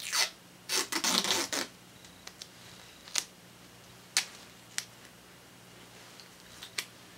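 White medical adhesive tape being pulled off its roll: a rasping rip about a second in, then scattered sharp clicks and crackles as the strip is handled. A faint steady low hum lies underneath.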